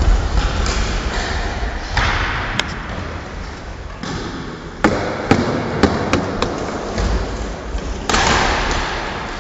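Floorball play: sharp clacks and thuds of plastic sticks hitting the plastic ball and each other, with a run of quick knocks midway and rushes of noise from the players at about two and eight seconds.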